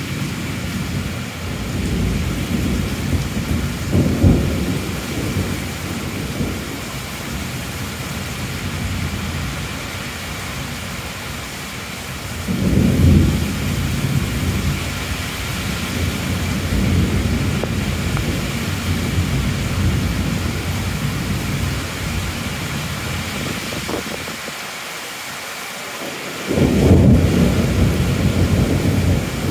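Heavy rain falling as a steady hiss, with low rolls of thunder swelling and fading under it, the loudest breaking in sharply near the end.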